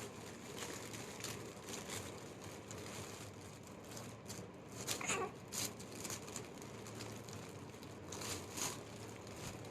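Faint rustling and crinkling of handled material in scattered short bursts. About five seconds in there is a brief squeak that falls in pitch, like a small vocal sound.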